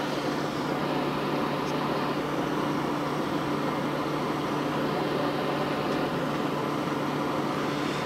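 A steady mechanical hum with a hiss over it, unchanging, with no distinct events.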